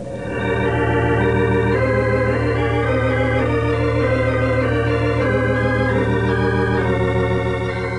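Organ music bridge between scenes of a radio drama: sustained chords that shift every second or so over a steady low bass note, swelling in just after the start and easing off slightly near the end.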